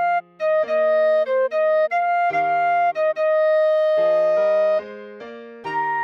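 Clarinet playing a melody one note at a time over held piano chords that change every second or so, with a brief break in the melody just after the start.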